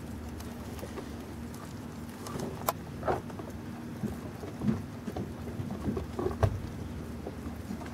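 Carolina Dog licking, chewing and tearing at a chunk of raw meat: irregular short smacks and clicks that begin about two seconds in, over a steady low hum.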